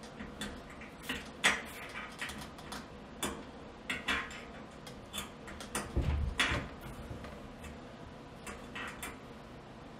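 Scattered, irregular metallic clicks and ticks of a small wrench and a brass burner orifice knocking against the gas range's burner base as the orifice is tightened during a natural gas to LP conversion. The loudest click comes about a second and a half in, and a denser group with a low knock comes around six seconds.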